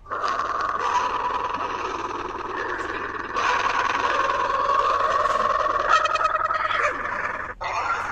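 A sneeze stacked into a huge number of overlapping copies, merging into one dense, sustained wash of sound with a steady tone running through it. It gets louder about three seconds in and cuts out abruptly for a moment near the end before resuming.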